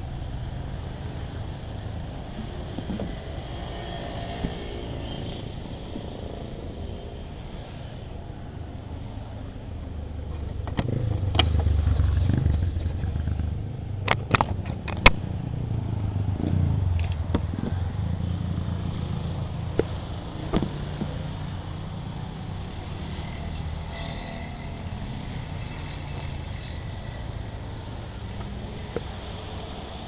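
Traffic passing on a wet road: cars go by with a hiss of tyres, over a steady low rumble. A louder low rumble swells in the middle, with a few sharp knocks from the camera being handled.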